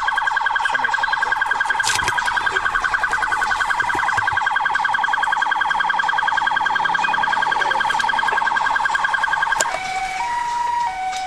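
Police car siren sounding from the patrol car being driven, a fast rising-and-falling yelp repeating several times a second. Near the end it switches to a slower two-tone pattern stepping between a high and a low pitch.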